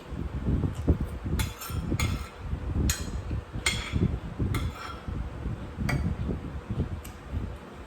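Eating utensils tapping and scraping against dishes, about eight short strokes spread unevenly, over a low wind rumble on the microphone.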